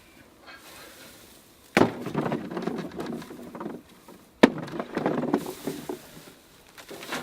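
Two sharp knocks, each followed by about two seconds of rustling and scraping, then a smaller knock near the end: a garden fork working through hay mulch and soil.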